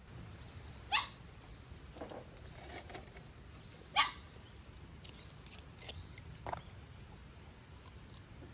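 Two short, sharp animal calls about three seconds apart, each a quick sweep in pitch, with a few fainter calls and ticks between them over a low steady rush.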